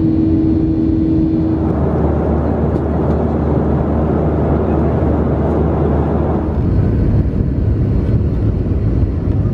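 Steady engine and airflow noise inside the cabin of a Boeing 737-400 in flight, from a seat beside its CFM56-3 turbofan. The noise changes abruptly about two seconds in, when a steady hum drops out, and again about six and a half seconds in.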